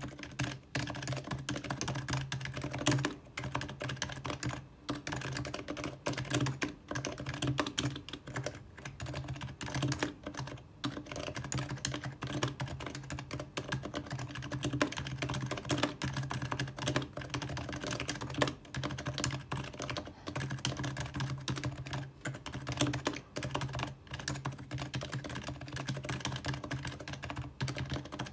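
Typing sentences at a steady pace on an HHKB Professional2 Type-S keyboard with Topre capacitive key switches: a dense, continuous run of keystrokes broken by a few short pauses.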